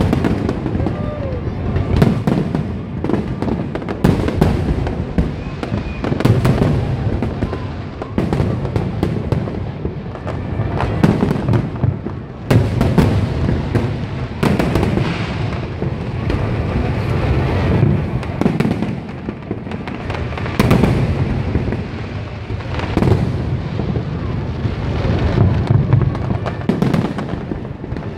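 Aerial fireworks display: a continuous barrage of shell bursts, sharp bangs every second or two over a constant low rumble from overlapping explosions.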